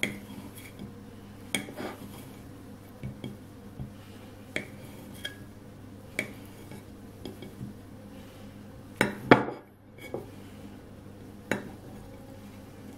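Kitchen knife cutting mozzarella into cubes, its blade knocking on a glazed ceramic plate: a dozen or so irregular sharp clicks, the loudest a close pair about nine seconds in.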